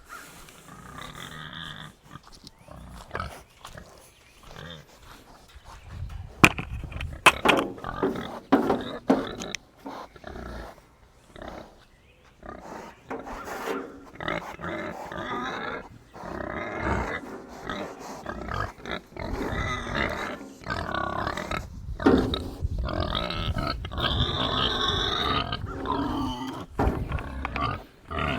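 Two hungry pigs grunting and calling for their feed, louder and nearly continuous from about six seconds in, with a few sharp knocks around then.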